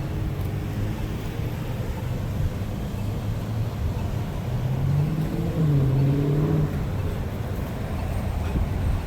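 Steady low outdoor rumble of traffic, with a motor vehicle's engine rising in pitch for about two seconds near the middle.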